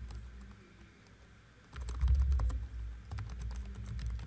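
Typing on a computer keyboard: a few scattered keystrokes, then a quick irregular run of key clicks from about two seconds in.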